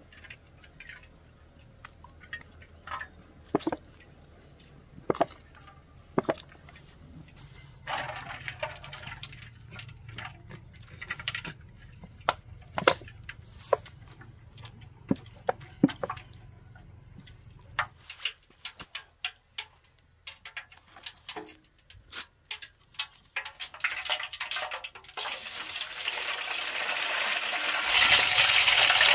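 Scattered light clicks and knocks of things being handled, then water running, growing louder over the last few seconds.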